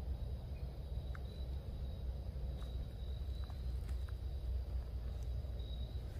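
Low rumble of a handheld camera being carried and moved, with a faint steady high-pitched insect-like tone running underneath and a few faint short chirps.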